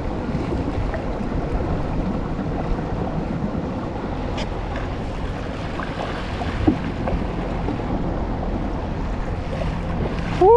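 Steady wind noise on the microphone over rushing, sloshing water as a motor-driven kayak speeds close past, throwing a wake.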